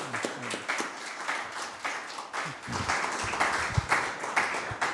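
A small audience applauding, many hands clapping together steadily.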